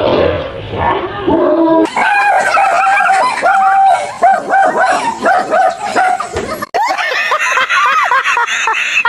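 Dog barking and yipping in rapid, repeated barks. Near the end it cuts to people laughing.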